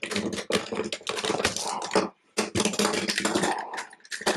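Hard plastic toy parts of a 2001 Robots in Disguise Optimus Prime clicking and rattling as hands work a tight connection apart, with a short pause about two seconds in.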